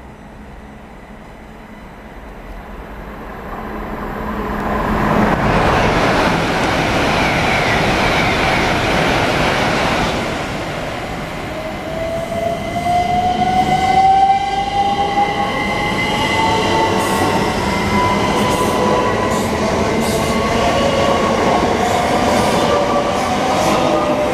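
Two coupled Class 387 Electrostar electric multiple units depart and accelerate past at close range, growing louder over the first few seconds. The rumble and clatter of wheels on rail is joined in the second half by traction-motor whine that rises steadily in pitch as the train picks up speed.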